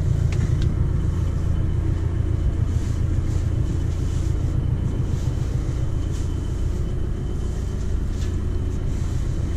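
Tractor and round baler running, a steady low mechanical rumble.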